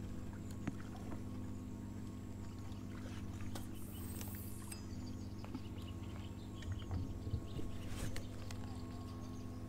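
Steady engine hum of a motorboat on the river, one even drone that does not change, with a few faint clicks and some low knocks near the end.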